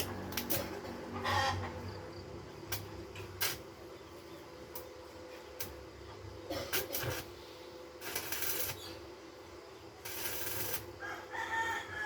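A rooster crows near the end, over scattered knocks and two short hissing, scraping bursts earlier on.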